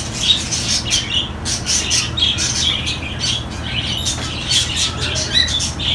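Many caged pet birds, budgerigars among them, chirping in a dense, continuous chatter of quick high calls.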